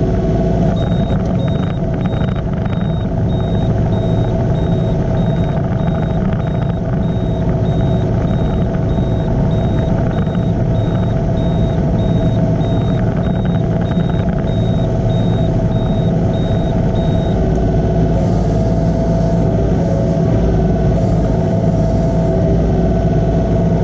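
Yanmar mini excavator's diesel engine running steadily at working revs. A rapid, high-pitched beeping runs over it and stops about two-thirds of the way through.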